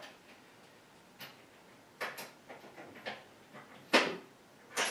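A series of irregular sharp knocks and clicks, about seven in five seconds, the loudest about four seconds in.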